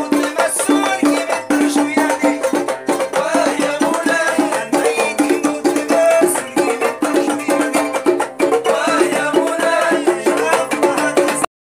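Traditional Amazigh music played live: string instruments over quick, steady clicking percussion. It cuts off abruptly at the very end.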